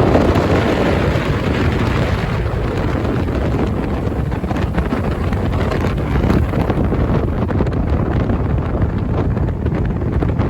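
Heavy wind buffeting the microphone: a loud, steady, low rumble.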